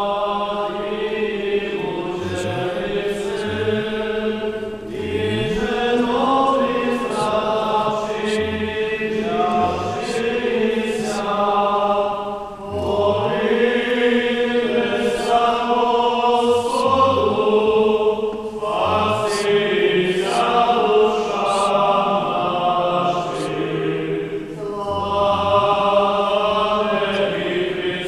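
Voices singing Eastern-rite liturgical chant in phrases a few seconds long, with short breaks between them.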